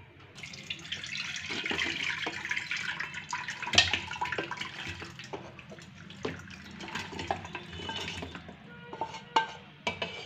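Chicken pieces and gravy splashing and sliding from a tilted frying pan into an aluminium pressure cooker. A wooden spatula scrapes and knocks against the pan. There is a wet rushing for the first few seconds, then scattered knocks and scrapes.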